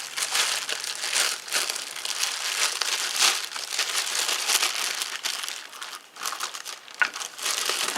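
Packaging crinkling and rustling as it is handled and pulled off a boxed cordless angle grinder, a steady run of dense crackles.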